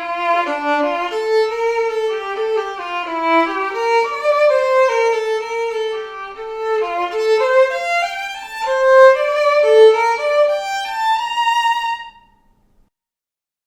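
Solo violin built on the Guarneri del Gesù model, bowed in a melody of separate notes. The phrase ends on a held note and the playing stops about twelve seconds in.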